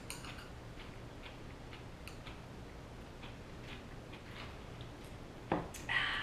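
Faint, irregular small clicks of eating at a table, then near the end a glass of iced tea with ice cubes knocks down onto a wooden table, followed by a short breathy sound.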